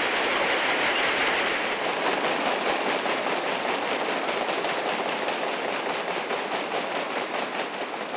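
Audience applauding, many people clapping steadily at once.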